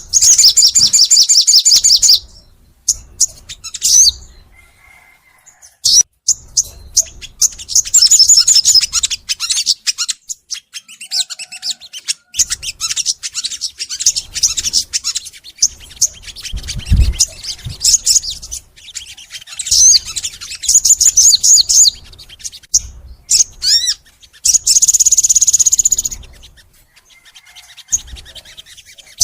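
A crimson sunbird (sogon) singing in high-pitched, fast trilling phrases broken by short pauses, with long rapid trills at the start and again near the end. A brief low thud comes about halfway through.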